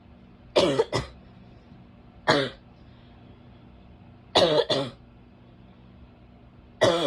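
A woman's barking cough: four short bouts of one or two harsh coughs each, about two seconds apart.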